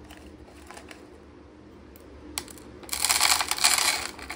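Small dry whole spices trickled by hand into a compartment of a clear plastic storage box: a single tap, then a quick rattling patter of many small hard pieces hitting the plastic for about a second near the end.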